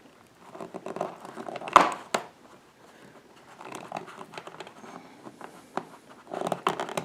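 Hands working a wire cable and its plastic strain-relief grommet loose from a small electrical box: irregular plastic clicks, rubbing and scraping, the loudest a sharp click about two seconds in.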